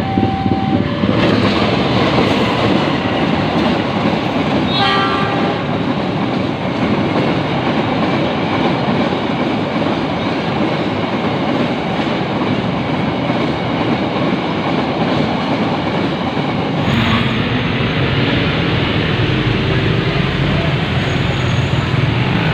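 A train passing with a steady rumble and rail clatter. A two-tone horn sounds just at the start and a short horn blast comes about five seconds in. About 17 seconds in, the sound changes to a heavier low rumble.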